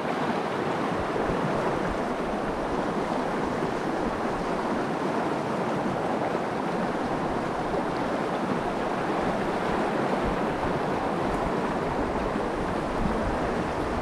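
Stream water running steadily, an even rushing noise with no breaks.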